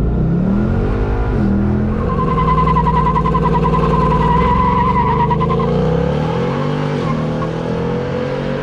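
Car engine running and revving, its pitch rising and falling, with a high steady whine over it for a few seconds from about two seconds in.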